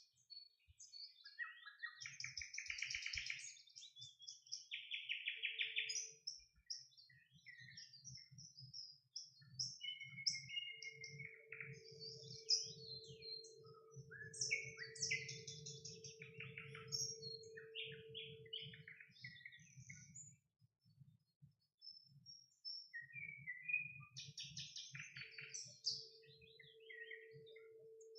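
Nightingale singing: short varied phrases of rattling trills, clear whistles and sharp chirps. A low steady hum with a low pulsing sound comes in about ten seconds in and again near the end.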